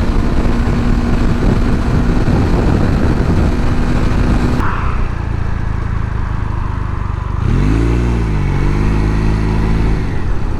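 Motorcycle riding at speed: engine running under a heavy rush of wind noise, with the wind noise dropping off suddenly about halfway through as the bike slows. Near the end the engine note dips and rises again, then holds steady.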